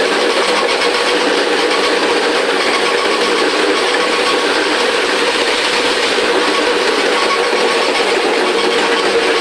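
Wet grinder running steadily as it grinds idli and dosa batter, a constant machine hum with a busy grinding texture over it.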